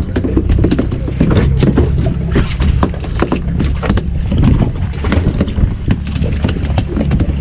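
A small fish flopping on a rubber deck mat: a quick, irregular run of slaps and taps. Underneath, the boat's engine runs with a steady low hum.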